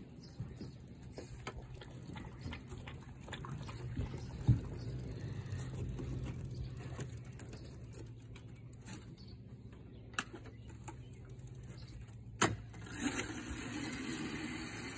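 Child's mini dirt bike running with a low steady hum. A few sharp knocks break in, the loudest about twelve seconds in.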